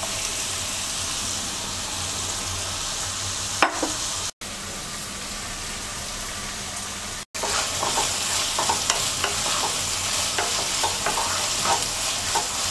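Chopped cabbage, chicken and vegetables sizzling in oil in a nonstick wok. From about halfway on, a wooden spatula scrapes and clacks against the pan as the stir-fry is stirred, and the sound breaks off twice for an instant.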